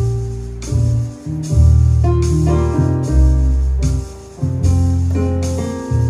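Jazz ballad played on a digital piano: slow chords over sustained low bass notes, changing about once a second.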